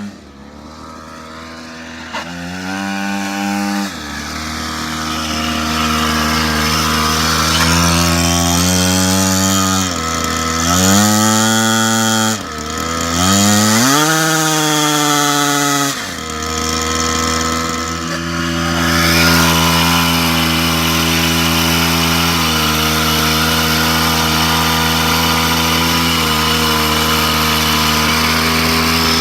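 49cc dirt bike engine revving, its pitch climbing and dropping back in several separate throttle blips, then running at a steady, higher speed for the second half.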